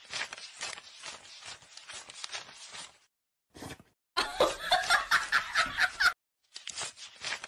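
A quick run of crisp crackly rustling ticks, then about four seconds in a loud two-second burst of laughter in rapid pulses, followed by more crisp ticks near the end.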